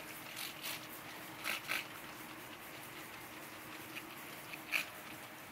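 Hand trigger spray bottle squirting acid onto a steel sculpture: several short hissing squirts, two quick pairs in the first two seconds and a few more near the end.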